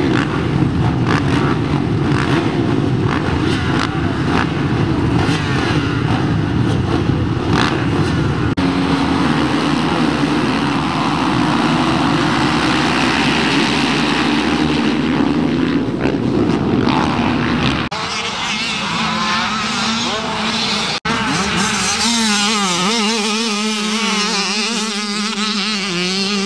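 Many small motocross dirt bikes running together, a dense mass of revving engines as the pack leaves the start. After a cut near the end, fewer engines are heard, with one bike's pitch rising and falling as it is throttled on and off.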